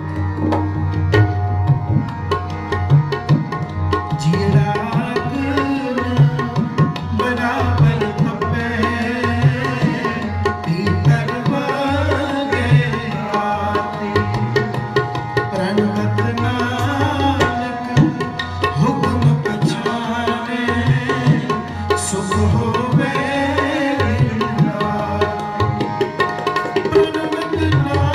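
Devotional kirtan music: a tabla plays a steady rhythm of strokes under a melody of held, gliding notes.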